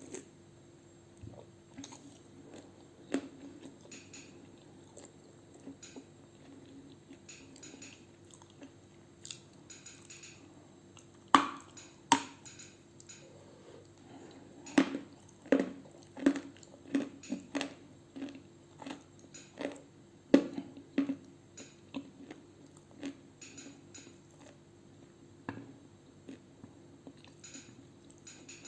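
Pieces of edible clay being bitten and chewed close to the microphone: dry, crisp crunches and crackles, sparse at first, then a dense run of loud bites and crunching through the middle stretch, thinning out again near the end.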